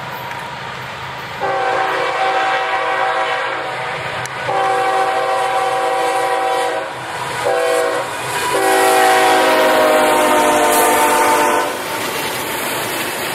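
Approaching locomotive's multi-note air horn sounding the grade-crossing signal: two long blasts, one short, and a final long one, over the rumble of the oncoming train.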